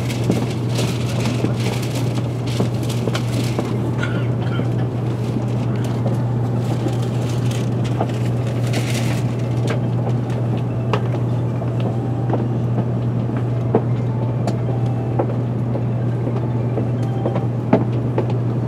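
Cabin noise inside a Tokaido Shinkansen car as it pulls along the platform and stops: a steady low hum, with short stretches of hiss in the first few seconds and again about nine seconds in, and a few faint clicks.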